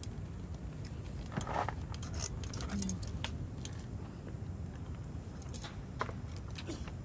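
Scattered light clicks and clinks of chopsticks and tableware against dishes, over a steady low background rumble.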